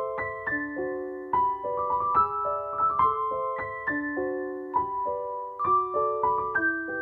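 Background piano music: a gentle flowing melody of single notes and chords, several notes a second, each note ringing and fading.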